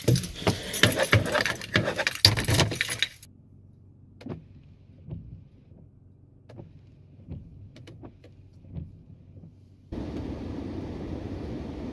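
A bunch of keys jangling and rattling for about three seconds, followed by quiet with a few soft knocks. About ten seconds in, a steady car running noise starts abruptly.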